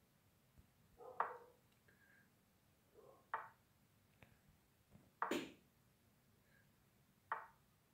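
Chess app move sounds: short, sharp wooden clicks as pieces land on the squares, about five spread a second or two apart, one louder a little past halfway.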